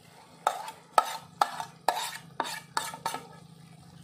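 A spoon scraping and knocking against a metal kadhai while stirring cooked chicken in thick masala: about seven sharp clanks, roughly two a second, each trailing into a short scrape.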